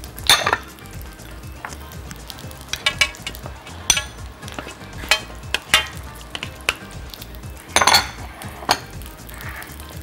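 A metal spoon clinking and scraping against a stainless steel platter and a glass bowl as cheese cubes are spooned out, in scattered knocks with a louder cluster near the end. A steady sizzle from aubergine slices grilling runs underneath.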